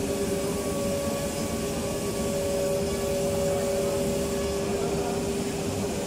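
Factory machinery running with a steady hum made of a few held tones over a low rumble; the higher tone drops out for about a second near the start.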